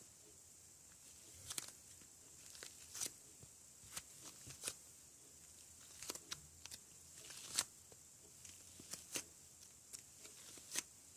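Faint, irregular clicks and soft sticky crackles of hands pressing and handling modelling clay, about a dozen small sounds with short gaps between them.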